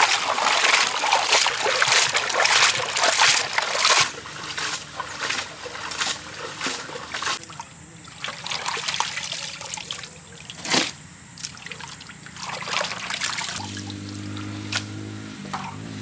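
Squid rings being washed by hand in a large aluminium basin of water: water sloshing and splashing, loud for the first four seconds, then softer splashes and drips. A brief steady low hum comes in near the end.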